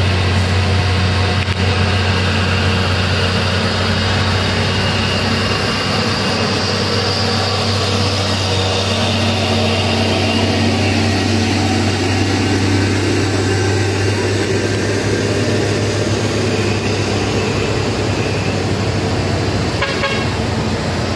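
Heavy diesel truck engine running with a deep, steady drone as a Mitsubishi Fuso cargo truck passes close by. After about six seconds the drone eases and gives way to the mixed noise of cars, a bus and more trucks moving past on the road.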